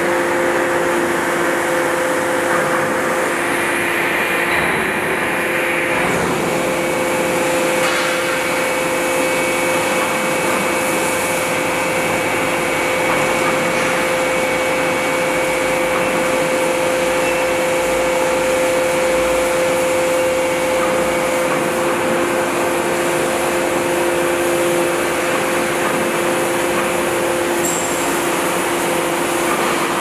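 Hydraulic static pile driver running during a crane slewing test: a steady machine hum with a constant two-tone whine, typical of its hydraulic pump and drive.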